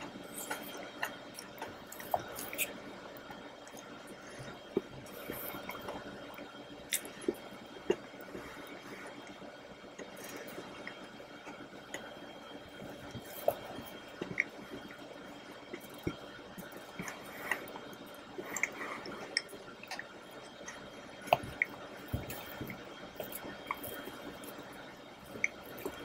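Close-miked eating of chocolate raspberry mousse cake: soft wet mouth smacks and squishes of chewing, with scattered light clicks and scrapes of a plastic fork at irregular moments.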